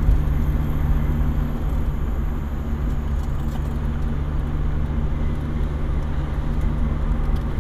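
Steady engine hum and tyre-on-road rumble of a car driving at a constant speed, heard from inside the cabin.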